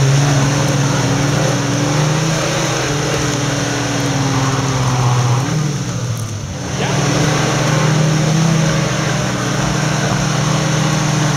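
Off-road 4x4's engine running hard under load, straining to get the vehicle through. About six seconds in it briefly drops away, then picks back up.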